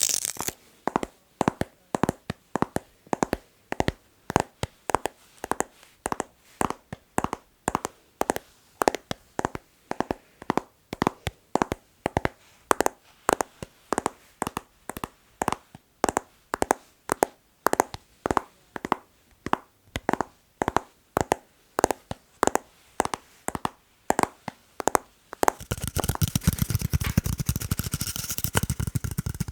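ASMR tapping: short sharp taps in a steady repeating pattern, a few a second in small groups. About four seconds before the end the taps give way to a dense, continuous scratching or rustling sound.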